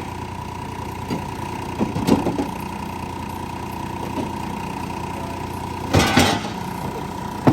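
An engine idling steadily, with two brief louder clatters about two seconds in and about six seconds in.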